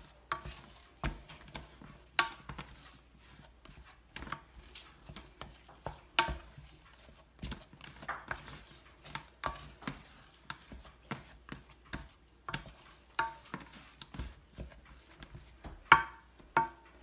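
Wooden spoon beating a thick cooked churros dough in a stainless steel saucepan: irregular knocks and scrapes of the spoon against the pan. The dough is being worked to mix in the baking powder and cool it.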